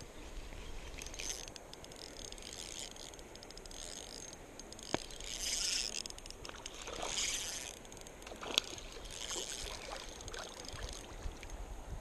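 River water splashing in short bursts over a steady trickle, with two sharp clicks.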